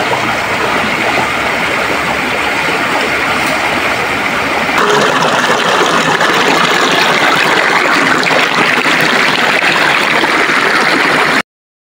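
Steady rushing water of a fast-flowing river swollen with flood water. It grows louder about five seconds in and cuts off suddenly near the end.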